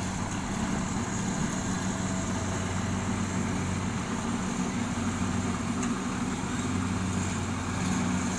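Rice combine harvester's diesel engine running steadily at a distance, a constant low hum with no change in pitch.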